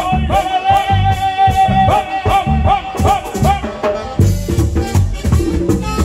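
Live merengue típico band playing: scraped güira and tambora drum beat under a melody that holds one long high note through the first half, then breaks into quicker short phrases.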